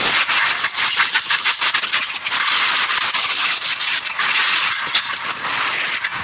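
Aerosol belt-dresser spray hissing in one long, steady burst onto a scooter's exposed CVT drive belt.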